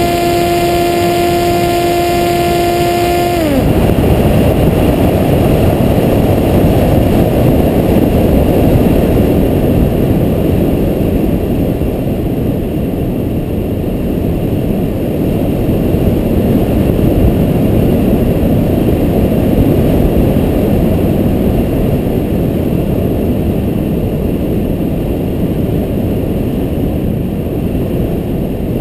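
Electric brushless motor and propeller of an FPV Maxi Swift flying wing whining at a steady pitch, then throttled off about three and a half seconds in, its pitch dropping away. After that, a steady rush of wind on the onboard GoPro as the wing glides.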